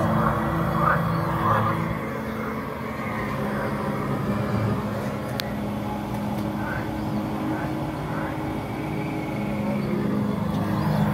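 Lord Raven animatronic figure running: a steady low mechanical drone, with a single sharp click about five seconds in.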